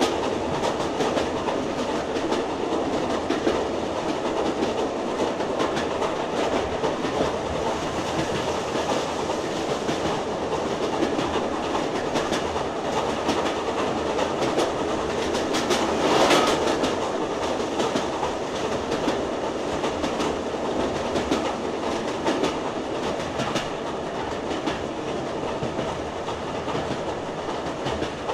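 HO-scale model train running on the layout: a steady rolling rumble with a rapid clatter of wheels clicking over the rail joints. It swells to its loudest about sixteen seconds in, as the train passes closest.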